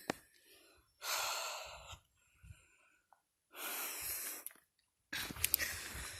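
A person breathing hard and out of breath from a long uphill hike, with two long breaths of about a second each. Near the end a rustling noise with a low rumble sets in, like wind or handling on the microphone.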